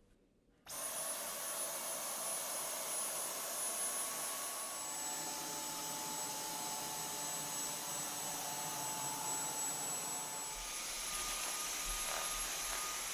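Dyson V10 cordless stick vacuum switched on less than a second in and running steadily, with a high-pitched whine over the motor's rush of air. The whine shifts in pitch twice, and a low rumble joins near the end.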